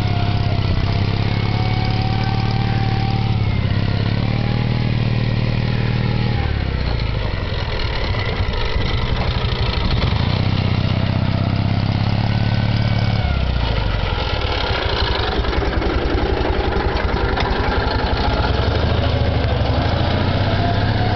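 Military mule's engine running as the vehicle climbs a dirt mound, its speed dropping and picking up again several times.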